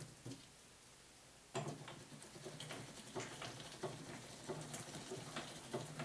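Hand-crank vertical sausage stuffer being turned, its gearing clicking and rattling irregularly as it pushes bratwurst meat through the stuffing tube into the casing. It starts about a second and a half in.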